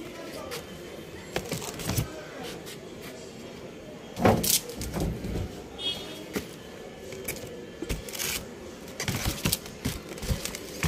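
Irregular knocks and rustling from cardboard boxes and spools of kite string being handled and shifted, the loudest knock a little over four seconds in.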